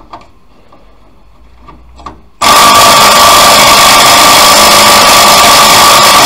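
A few light clicks, then about two and a half seconds in a cordless impact wrench starts hammering hard and steadily on a rusted exhaust clamp nut that is pretty seized up.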